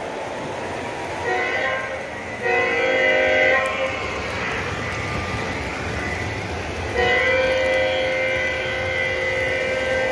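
Model train locomotive's sound-system horn blowing two long, steady blasts, one about a second in and another starting about seven seconds in that lasts nearly four seconds, over steady background noise.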